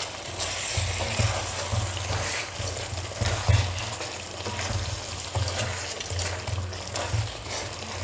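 A spoon stirring and scraping thick chicken curry in a pan, the reduced gravy sizzling as it cooks.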